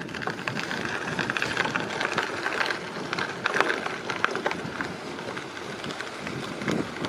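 Bicycle rolling along a gravel path: steady tyre crunch over a rushing noise, with irregular small clicks and rattles from the bike over the loose surface.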